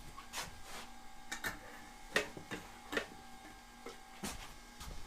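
Scattered light clicks and knocks, about eight to ten at irregular spacing, as aluminium airplane parts and tools are handled on a workbench, over a faint steady hum.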